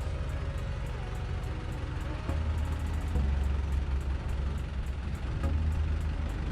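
Longtail boat's car engine running steadily, a low drone with a hiss of wind and water over it.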